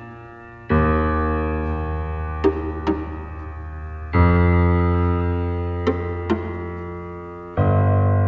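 Background music: slow sustained chords that change about every three to four seconds, with a pair of short, light struck notes between each change.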